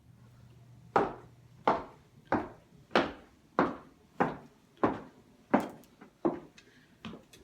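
Footsteps going up a flight of stairs: steady, evenly spaced thuds about every two-thirds of a second, starting about a second in.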